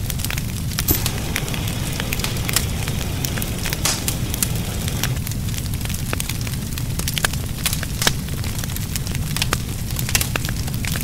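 Fire burning: a steady low rumble with many sharp, irregular crackles and pops.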